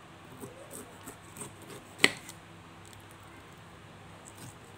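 Kitchen knife cutting the rind off a pineapple on a wooden chopping board: a run of small crunching cuts and light clicks, with one sharp click about two seconds in.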